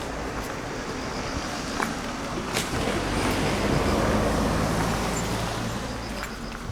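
A motor vehicle passing close by: its engine and tyre noise swells to a peak about four seconds in, then fades, with a few sharp clicks on top.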